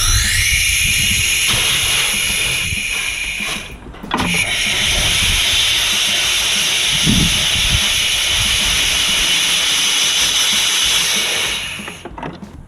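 Compressed air blowing through an A/C line with a flush gun to push the flush solvent through: a loud, steady hiss with whistling tones that rise as it starts. It stops briefly about four seconds in, then blows again until it cuts off near the end.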